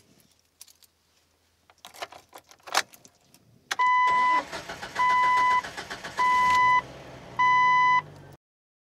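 A few clicks and knocks, then a car engine starting and running while the car's warning chime beeps four times, evenly spaced about a second apart. The sound cuts off suddenly near the end.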